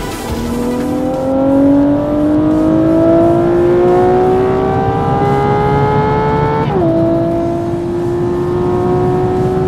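Ferrari 812 Superfast's naturally aspirated 6.5-litre V12 accelerating, its note rising steadily in pitch. About two-thirds of the way through, the pitch drops sharply at an upshift from fourth to fifth gear, then starts climbing again.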